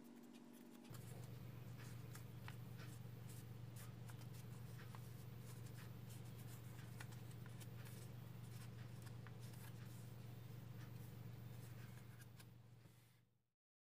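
Faint rustling and crinkling of origami paper as fingers press and shape a folded paper cat, heard as many small scattered clicks over a steady low hum. It all fades out near the end.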